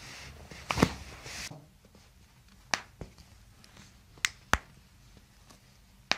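Foot and toe joints cracking under a chiropractor's manipulation: a loud pop about a second in, then a series of single sharp pops, two of them close together past the middle.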